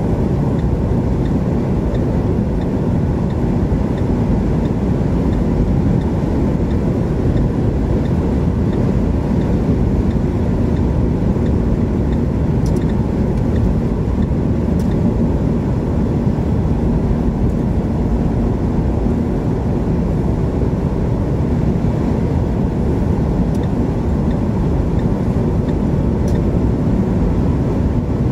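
Steady car road noise from inside the cabin at motorway speed: engine and tyre rumble that holds even throughout.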